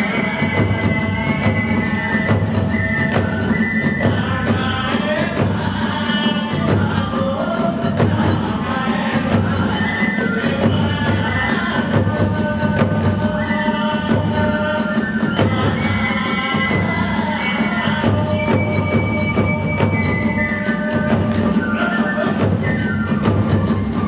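Kagura hayashi: drums and hand cymbals keep up a steady, driving beat under a high bamboo-flute melody that steps from note to note.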